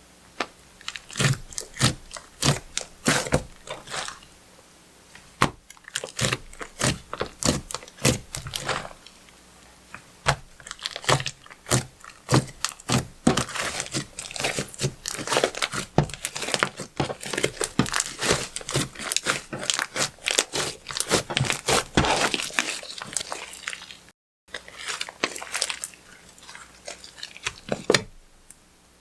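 Slime squished, folded and stretched by hand, giving a dense, irregular run of sharp wet clicks and pops that thickens into near-continuous crackling in the middle.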